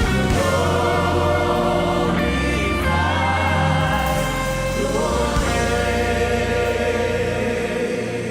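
Live gospel worship music: a choir of voices singing sustained lines over instruments with a low bass line.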